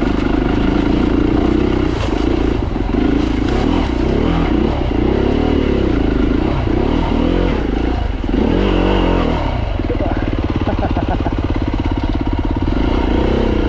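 Beta 390RR single-cylinder four-stroke enduro motorcycle engine under way on a trail, its revs rising and falling repeatedly through the middle, then holding steady near the end.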